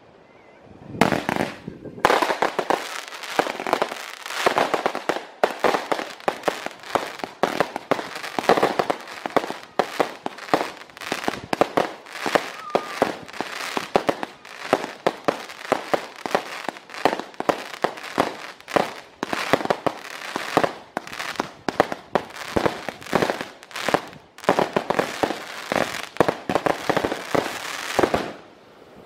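A fireworks display: aerial shells and firecrackers bursting in a rapid, nearly unbroken barrage of bangs and crackles, which stops about a second before the end.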